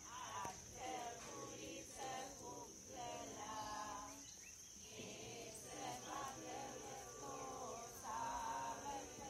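Steady high-pitched drone of insects, with faint voices coming and going underneath.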